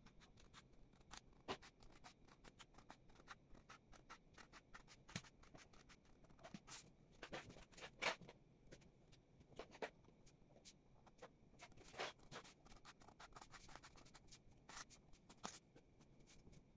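Scissors cutting paper: a long run of faint, short snips at an uneven pace.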